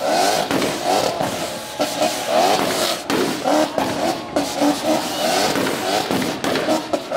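Turbocharged BMW E30 engine held on its 2-step launch limiter, revving in rapid stuttering bursts about three times a second, with anti-lag bangs and pops from the exhaust.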